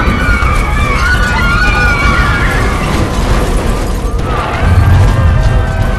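Loud music with a heavy low bass and wavering high tones; the bass pulses grow stronger near the end.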